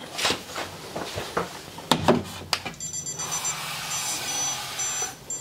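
Electronic stud finder beeping against a wall: a run of short, high-pitched on-off beeps over a steady hiss, starting about three seconds in after a few handling clicks.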